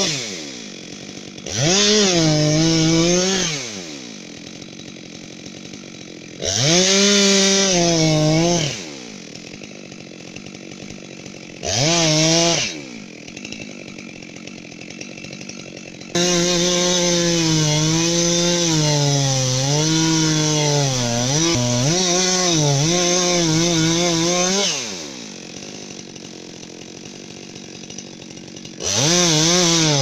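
Two-stroke chainsaw revved to full throttle in short bursts, dropping back to idle between them, then held at full throttle for several seconds from about halfway, its pitch sagging and recovering as the chain bites into the base of a large tree trunk; it falls to idle again near the end before revving once more.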